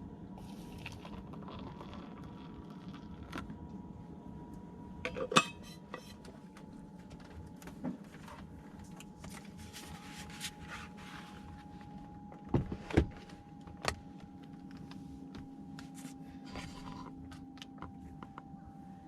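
Cookware and utensils being handled in a small space: scattered light clinks and rattles, with a few sharper knocks about five seconds in and again around twelve to fourteen seconds in, over a steady low hum.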